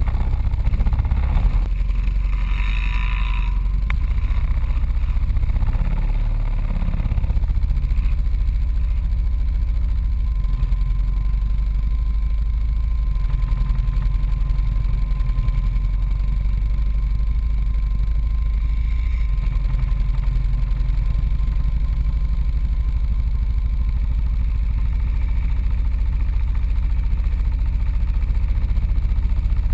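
ATV engine running steadily under the onboard camera, with a short burst of higher-pitched noise about three seconds in.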